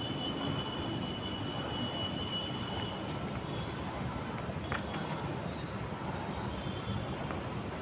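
Steady low outdoor rumble, with one short sharp knock a little under five seconds in.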